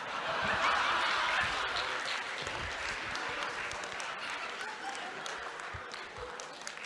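Audience applauding in a large hall, the clapping strongest about a second in and then slowly fading.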